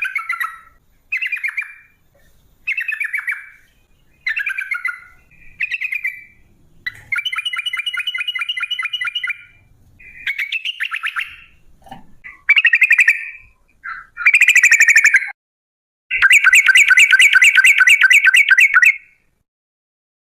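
Yellow-vented bulbul (trucukan) singing a run of short phrases, then long rattling trills of fast repeated notes. The longest trill, about three seconds, comes near the end.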